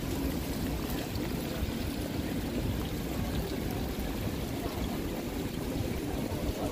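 Steady rain falling on wet paving, an even hiss over a low rumble.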